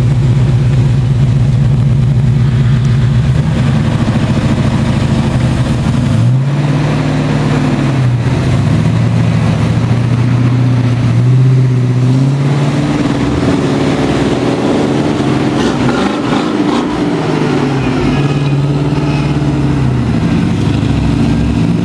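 Lifted Chevy K5 Blazer's engine running steadily under load as the truck crawls up steep slickrock, then revving up and down several times from about six seconds in as it climbs out.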